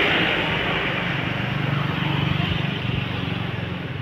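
A road vehicle driving past close by and fading away, its tyre and engine noise dying down gradually while a low engine hum carries on.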